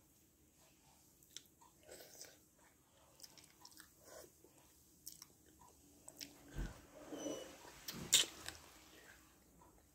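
A person chewing and biting on chicken feet: soft wet mouth sounds and small clicks. A dull low knock comes in the second half, and the loudest sharp click follows soon after.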